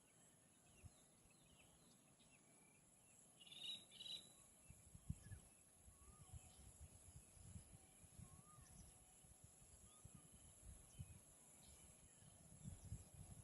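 Faint rural outdoor ambience: a steady high insect hum with a few short bird chirps, one brief chirping call about four seconds in, and intermittent low rumbles.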